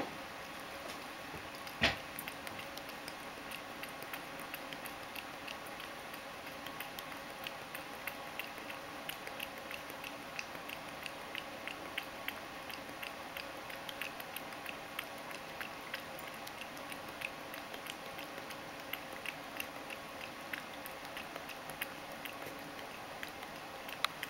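Ragdoll cat lapping goat milk from a stainless steel bowl: a steady run of quick wet tongue clicks, a few a second, with one louder knock about two seconds in.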